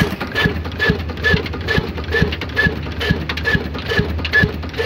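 Old Ruston & Hornsby diesel engine running at a slow, steady speed: an even knock about twice a second, each with a short bright click, over a low steady hum.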